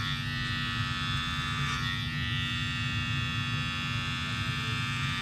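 Muzili battery-powered electric fabric shaver running steadily with a hum, its oiled rotating blades being passed over the fuzzy loop side of a Velcro strap to shave off lint.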